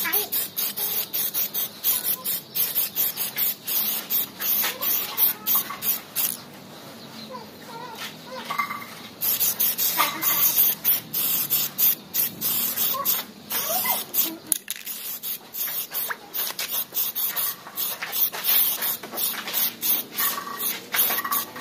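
Aerosol spray-paint can (Sapporo) hissing in quick, repeated short bursts as gold paint is sprayed onto a motorcycle wheel rim. The spraying pauses for about three seconds some six seconds in, then carries on.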